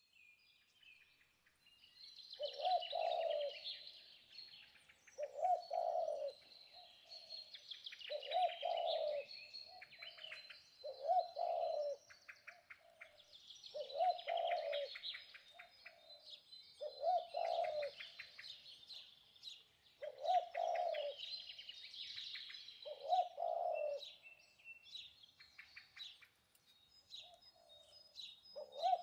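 Birdsong: a low cooing call repeated about every three seconds, over steady higher chirping and twittering from other birds.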